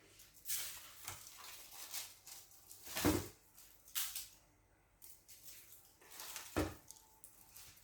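Kitchen handling noises: dishes and utensils scraping and rustling on the counter, with two louder knocks, about three seconds in and again about three and a half seconds later.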